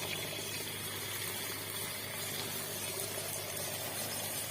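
Water running steadily, a continuous rush.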